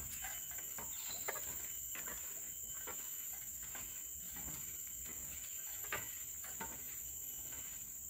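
Steady high-pitched drone of a forest insect chorus, with scattered light clicks and crackles over it.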